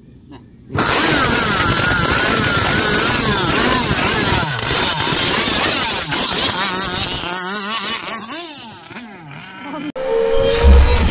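Zenoah 32cc two-stroke petrol engine of an RC boat running loudly, coming in suddenly about a second in, its pitch rising and falling again and again. It is quieter after about seven seconds. Music takes over near the end.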